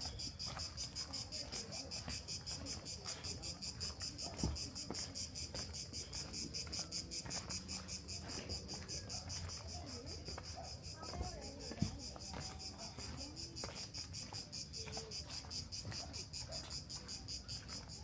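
A chorus of cicadas buzzing in the trees: a steady, high, rapidly pulsing drone. A couple of short knocks stand out, one about four seconds in and one near two-thirds of the way through.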